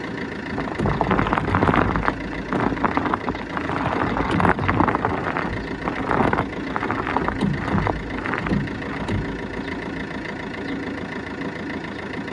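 Fiat Punto Evo 1.3 JTD diesel engine idling while the steering is turned, with irregular clunks and creaks from the front suspension that thin out over the last few seconds. The owner calls this the typical sound of a faulty control arm bushing and worn ball joints.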